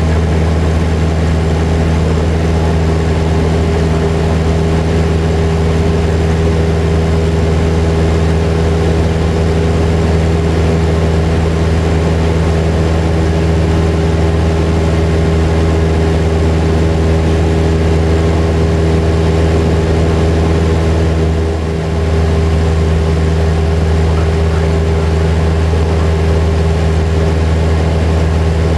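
Cessna 172's piston engine and propeller running steadily in flight, heard inside the cabin from the back seat as a loud, even drone. The level dips briefly about three-quarters of the way through.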